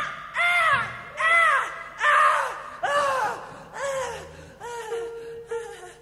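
Experimental music: a run of short cries, each swooping up and then down in pitch, about one a second and growing fainter. A steady held note comes in about five seconds in.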